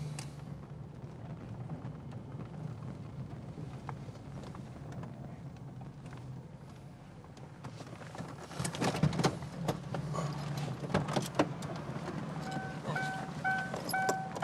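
A police car's engine runs with a low, steady hum. About two-thirds of the way in come a handful of sharp clicks and knocks, and near the end a short electronic beep repeats about twice a second.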